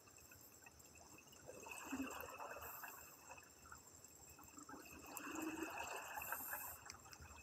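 Scuba regulator exhaust heard underwater: two bursts of bubbling from exhaled breath a few seconds apart, played at double speed.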